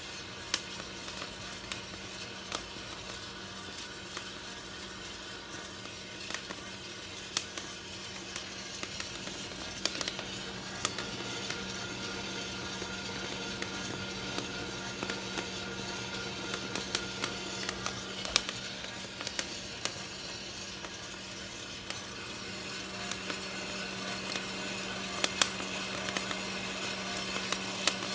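Hottop P coffee roaster running with a steady motor hum while the roasting coffee beans give scattered, sharp pops of first crack, coming a little more often near the end.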